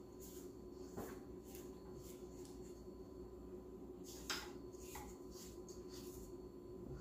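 Spatula scraping around the sides of a stainless steel mixing bowl, with a few soft knocks against the bowl, the loudest about four seconds in, over a low steady hum.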